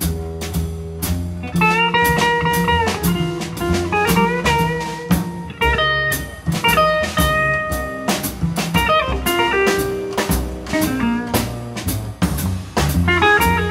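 Small jazz band playing live: electric guitar and piano over an upright double bass and a drum kit with frequent cymbal strikes.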